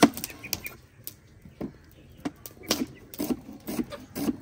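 Irregular clinks and knocks of cookware being handled on the stove, the sharpest right at the start.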